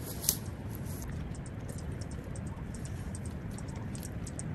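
Rapid, irregular high-pitched ticking, several clicks a second, typical of insects in dry grass, over a steady low rumble of wind. A single sharp click comes just after the start.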